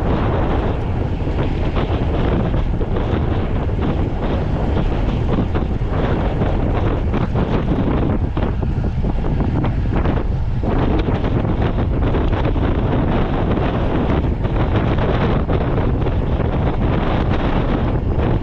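Loud, steady wind rushing over the camera microphone from riding a road bike at speed.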